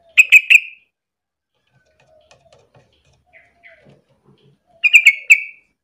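Yellow-vented bulbul calling: a short bubbly phrase of three quick notes right at the start, repeated about four and a half seconds later. Faint soft chirps come in between.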